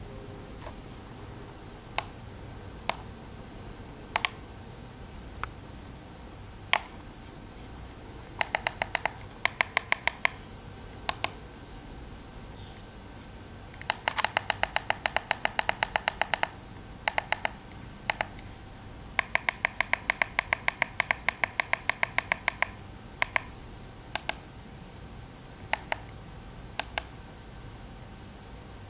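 Sharp ticks from an electric-bike LCD display's buttons being pressed, some single and scattered, others in fast runs of about eight a second, as its settings are stepped through.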